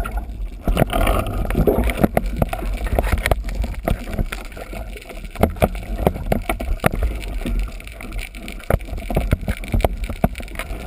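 Underwater sound picked up by a diver's camera: a steady low, muffled water rumble with many sharp, irregular clicks and knocks scattered throughout.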